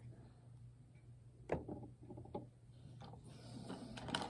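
Faint clicks and light taps from small plastic fidget toys being handled, a few of them about a second and a half to two and a half seconds in, over a low steady hum.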